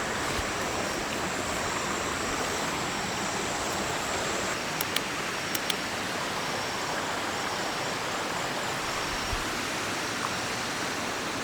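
River water flowing steadily, with a faint high thin tone over it and a few small clicks about halfway through.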